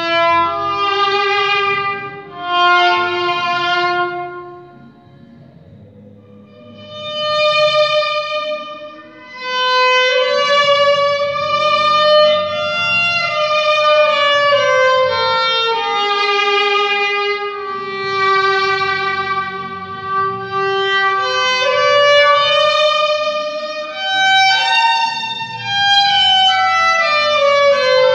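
Solo violin played with a bow: a slow melody of long held notes, with a short pause about five seconds in.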